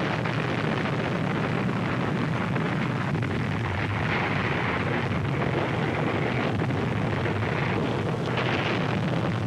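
Steady, loud rumbling roar with no separate blasts, the newsreel soundtrack's sound of the atomic bomb explosion and its rising cloud.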